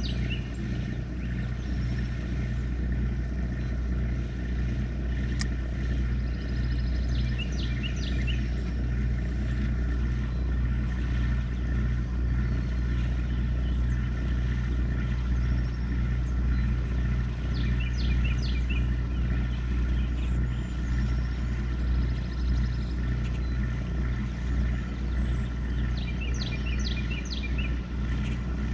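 A boat's generator running with a steady low hum. Small birds chirp a few short phrases over it now and then.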